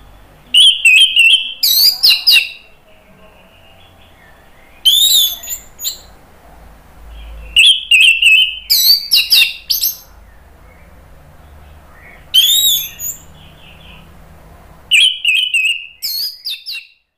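Orange-headed thrush singing in about five short, loud bursts of rapid high notes, a few seconds apart.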